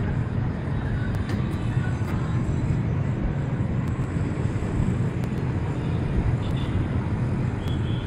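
Wind rumbling on the microphone, a steady low buffeting, with a few faint knocks.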